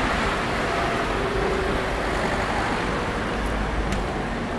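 Road traffic: cars driving along a town street, an even rush of engine and tyre noise.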